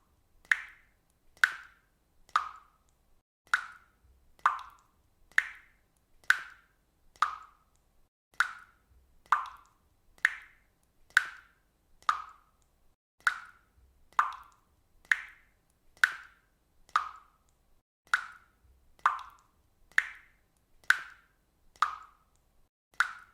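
Water dripping steadily into water: single drops falling at an even pace of about one a second, each a short, clear plop.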